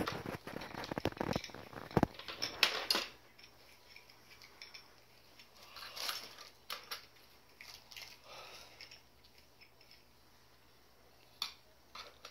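Plastic toy tools clicking and knocking against a plastic toy workbench as a child handles them: a quick run of taps and clatter in the first three seconds, then a few scattered clicks.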